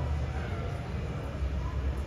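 Airport terminal ambience heard through the glass: a steady low rumble with faint background voices.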